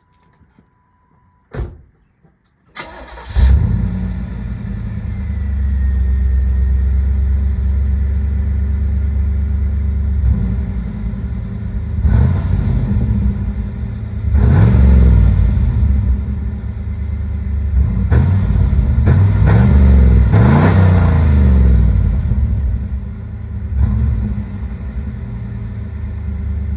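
1987 Chevrolet Camaro IROC-Z28's 305 Tuned Port Injection V8 starting about three seconds in after a short steady chime tone, then idling with a deep exhaust rumble through a Dynomax Super Turbo muffler and being revved several times, the pitch rising and falling with each rev.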